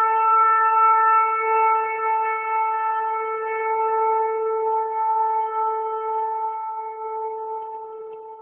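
One long, steady blast on a horn, held at a single pitch and slowly fading over its last few seconds before it stops.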